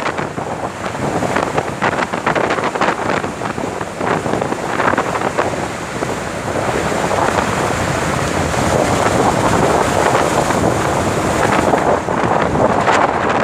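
Loud wind buffeting the microphone, a gusty rushing noise that rises and falls without a break.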